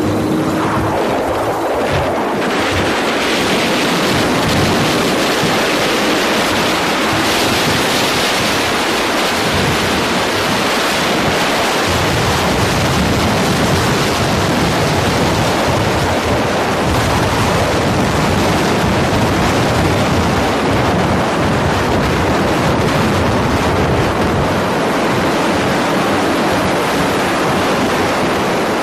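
Wind buffeting the microphone on a motorcycle moving at road speed: a loud, steady rush of noise.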